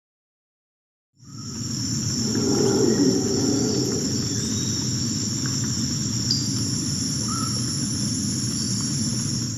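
A steady, high-pitched insect chorus like crickets over a low rumble, with a few faint short chirps; it starts after about a second of silence.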